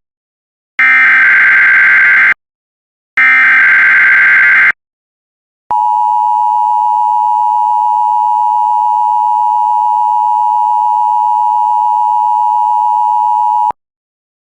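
Emergency Alert System SAME header: the last two of its three data bursts, each a harsh, buzzing burst of about a second and a half, followed after a short pause by the EAS two-tone attention signal (853 and 960 Hz). The attention signal holds steady for about eight seconds and then cuts off sharply, marking the start of an emergency alert broadcast.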